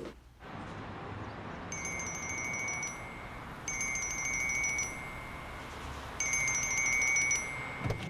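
Mobile phone ringtone: a chiming, tinkling tune plays three times with short pauses, over steady background noise.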